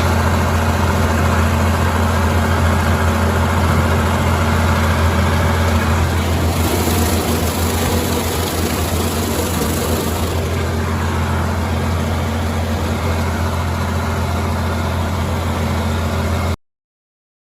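An engine running steadily with a deep, even hum, then cutting off suddenly near the end.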